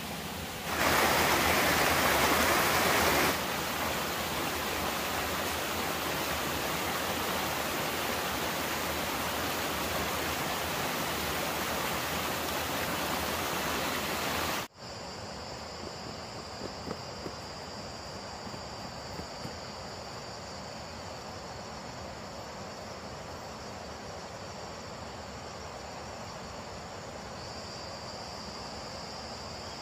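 Rushing water of a small forest stream cascading over rocks, a steady hiss that is louder for a couple of seconds near the start. About halfway it cuts off abruptly, giving way to insects chirring in a steady high drone.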